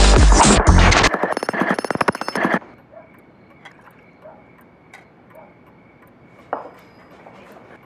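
A jackhammer hammering in a rapid, even rattle for about a second and a half, breaking in as loud electronic music cuts off and stopping suddenly. After it, quiet with a faint steady high tone, a few faint ticks and one sharp click near the end.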